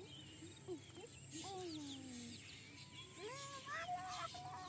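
Faint open-field ambience: a few distant long calls, one sliding down in pitch and a later one rising then holding, with small bird chirps.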